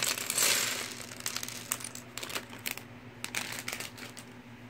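Small plastic building bricks clicking and clattering against each other as they are picked through on a table, with a plastic parts bag crinkling in about the first second.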